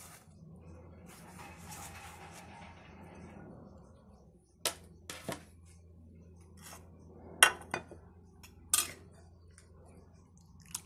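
Kitchen dishes being handled: a short stretch of scraping as chopped vegetables are pushed off a wooden plate, then several sharp knocks and clinks of bowls and plates set down on the counter.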